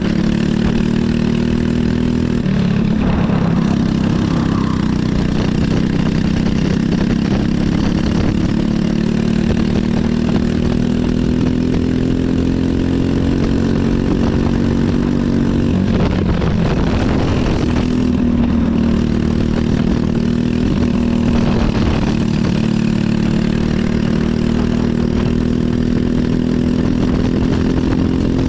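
Briggs & Stratton LO206 single-cylinder four-stroke kart engine running hard on track. Its note dips and climbs again several times as the kart slows for corners and accelerates out.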